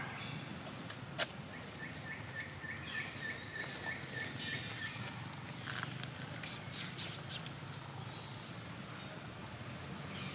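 Outdoor background noise with a steady low hum, and a run of short high chirps at one pitch, about five a second for some three seconds, with a few sharp clicks.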